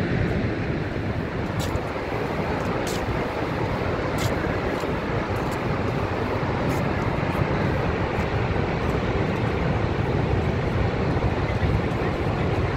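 Steady rush of water from Niagara Falls pouring into the gorge, an even noise with a few faint clicks in the first half.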